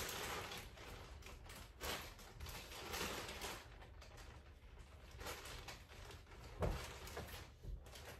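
Quiet rustling and handling noises as skeins of yarn are passed up and set on shelves, with a few soft knocks, the loudest a little over six and a half seconds in.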